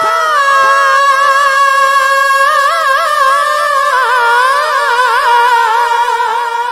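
A male naat reciter sings unaccompanied into a microphone. He holds one long high note for about four seconds, then breaks into wavering melismatic turns.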